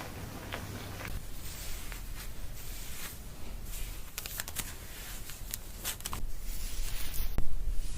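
Hands scrubbing and rubbing hair during a shampoo: an irregular crackling rustle of many small scrapes, growing louder over the last second or two.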